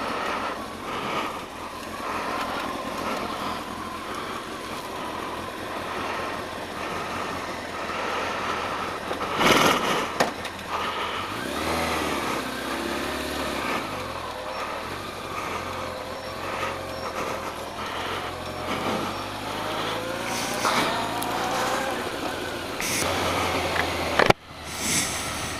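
Honda motorcycle engine running under wind noise on the camera microphone, its pitch rising and falling as it is ridden away. A brief loud burst of noise about nine and a half seconds in.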